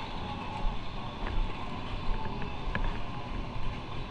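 Motorcycle on the move: engine and road noise under wind buffeting the microphone in uneven low gusts, with a few faint clicks.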